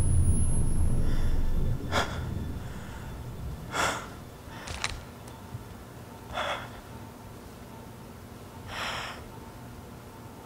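A low rumble cuts off a little under two seconds in, then a man breathes in sharply about five times, a second or two apart, as if gasping.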